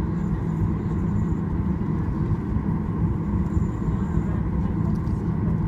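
Steady cabin noise of a Boeing 737 taxiing with its jet engines at idle: a low, even hum with a faint steady tone above it.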